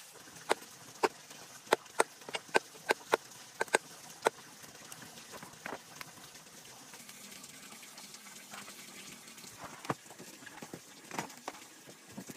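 Cleavers chopping pork fat on wooden chopping blocks: a quick run of sharp chops, two or three a second, for about the first four seconds, then only a few scattered knocks.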